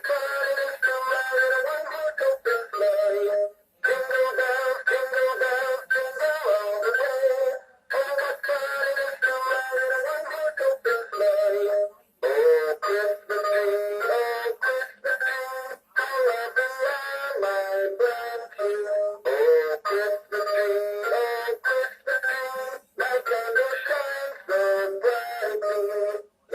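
A Gemmy animated Christmas toy plays a Christmas song in a synthetic-sounding voice through its small speaker. The sound is thin, with no bass, and there are short pauses between the phrases.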